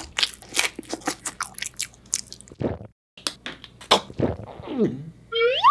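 Close-up eating sounds: a person biting and chewing candy, a marshmallow Peep, then a second person chewing a gummy, with many quick crisp crunches and wet chewing clicks. After a brief cut to silence, a short falling and then rising 'mmm' of tasting comes near the end.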